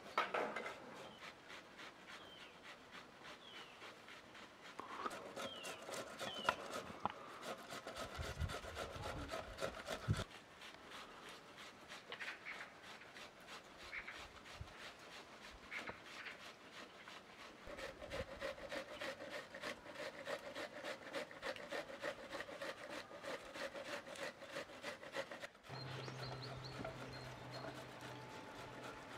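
Hand food preparation with knives and kitchen utensils: a run of quick scraping and rubbing strokes, with a few sharper knocks, as eggplants are peeled and cut.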